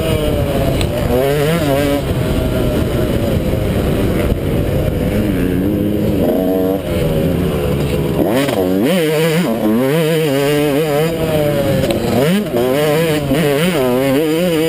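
A 250 cc motocross bike's engine revving hard as it is ridden around a dirt track. The pitch climbs and drops continually with throttle and gear changes, and the swings come quicker in the second half.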